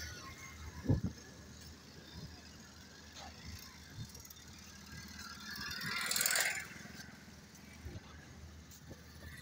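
Motorcycle passing close by, its noise rising and falling about six seconds in. A sharp low thump comes about a second in.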